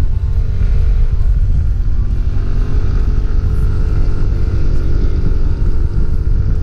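Yamaha NMAX scooter's single-cylinder engine running steadily while riding, over a heavy low rumble of wind buffeting the microphone.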